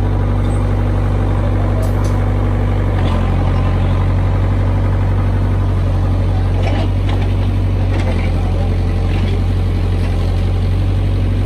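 A large engine idling with a steady, deep drone that shifts slightly in pitch about three seconds in. A few faint knocks sound now and then.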